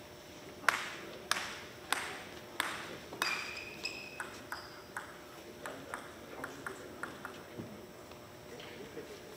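Celluloid-type table tennis ball clicking in a large hall: five sharp hits about every 0.6 s, then a long run of lighter, quicker ticks, about three a second. A brief high squeak comes just after the third second.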